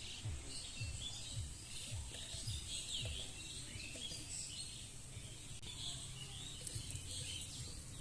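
Small birds chirping and trilling, many short calls overlapping, over a low thumping about twice a second in the first three seconds.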